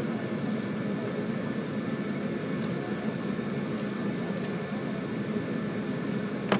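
Steady running noise of a JR 185-series electric train heard from inside the carriage: a continuous low rumble of wheels and running gear, with a few faint high clicks and one sharper click near the end.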